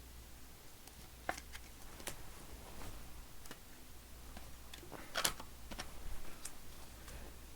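Trading cards and plastic card holders being handled: a few sharp clicks, the loudest about five seconds in, among light rustling, over a low steady hum.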